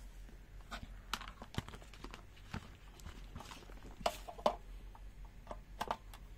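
Faint, irregular clicks and knocks of hand handling: a plastic handheld multimeter being set down on a cutting mat and its test leads moved about. The loudest pair comes about four seconds in.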